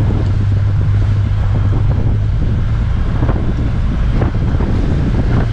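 Yamaha 115 outboard motor running steadily with the boat under way, a constant low hum, with wind buffeting the microphone.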